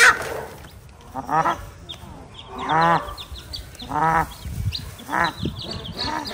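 Broody black hen disturbed on her nest by a hand reaching under her, giving five calls about a second apart, each rising and falling in pitch. Newly hatched chicks peep rapidly and high-pitched.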